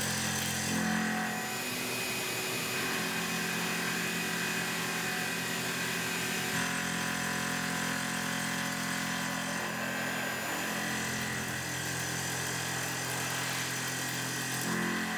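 Tormach PCNC 1100 CNC mill spindle running a Superfly face mill at 2500 rpm across the top of a metal block: a steady machining hum with a thin high whine above it.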